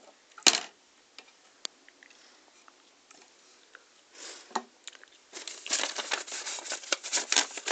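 A sharp click about half a second in, then near quiet, then from about five seconds in dense rustling and crinkling of paper leaflets and card packaging being handled inside a glass vivarium.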